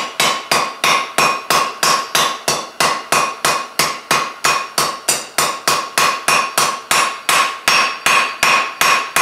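Hand hammer striking red-hot 3/8-inch square mild steel on an anvil in a steady rhythm of about three blows a second, the anvil ringing under each blow. The square stem is being rounded up, its corners knocked off as the bar is turned.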